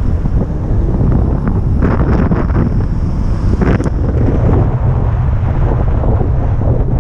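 Wind buffeting the microphone of an electric moped riding along, a steady low rumble with brief louder rushes of noise about two seconds and nearly four seconds in.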